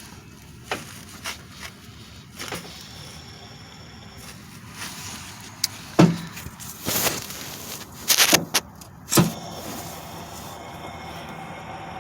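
8th-generation Honda Civic Si engine running with a steady noise, broken by several sharp knocks, the loudest about six seconds in and a cluster around eight to nine seconds.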